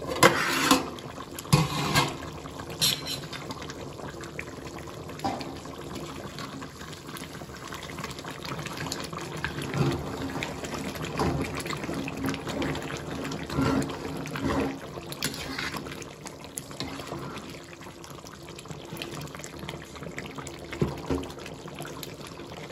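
A metal plate lid clatters off a large metal pot in the first few seconds. Then a ladle stirs a simmering curry, with occasional knocks of metal on the pot over the bubbling and sloshing of the gravy.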